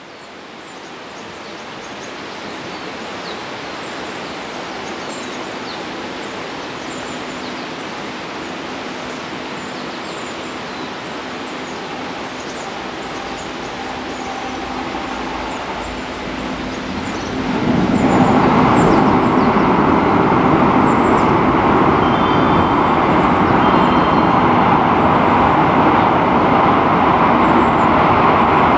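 Electric train running through a double-track rail tunnel towards the station, a steady rumble from inside the tunnel that builds slowly, then grows sharply louder about two-thirds of the way in as the train draws near.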